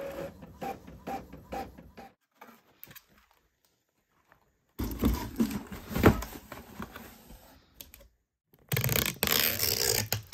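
Epson Expression Home XP-4100 inkjet printer running a print job: its print mechanism makes a quick run of mechanical pulses, about three a second, for the first two seconds. After a near-quiet gap, a cardboard shipping box is handled and packed, with rustling and a few knocks. Near the end comes a loud, dense noise of packing tape being run over the box.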